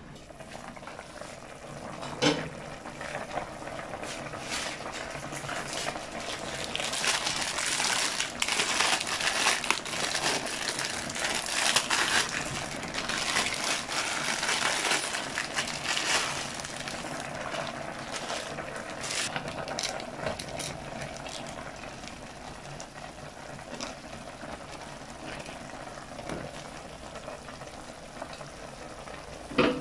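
Plastic instant-noodle packet crinkling as the dried noodle block is crushed by hand and dropped into a pot of simmering broth, loudest for several seconds midway, then settling into the broth's steady bubbling. A glass pot lid clinks once about two seconds in as it comes off, and again at the very end as it goes back on.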